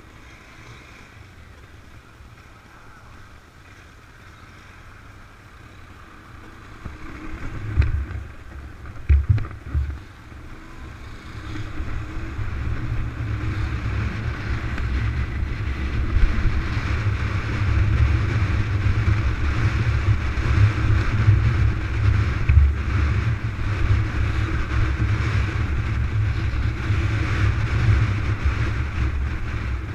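Wind rushing over a motorcycle helmet camera's microphone while riding, with the motorcycle running underneath. It is fairly quiet for the first few seconds, rises from about seven seconds in with a couple of strong gusts, then settles into a steady loud rush as the bike keeps its speed.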